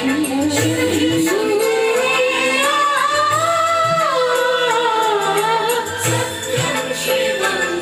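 A man sings one long drawn-out note into a handheld microphone, the pitch rising over the first few seconds and then slowly falling, over Bollywood-style backing music with a steady beat.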